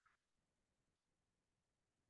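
Near silence: digital silence between spoken passages.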